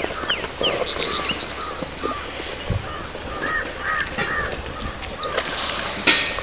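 Birds calling: a rapid run of high chirps in the first second or so, then repeated short arched calls in the middle. About five and a half seconds in comes a short harsh scrape, the loudest sound, as a metal spatula moves in the iron kadai of simmering curry.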